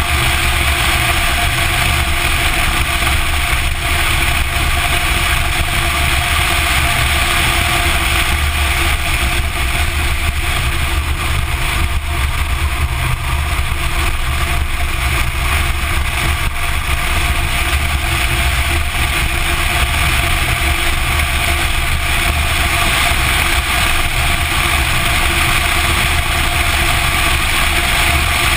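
Porsche 944 Turbo driving on a race track at a steady pace, heard from a camera mounted low on the outside of the car by the front wheel: a loud, even rush of wind and road noise over the running engine, with no clear revving.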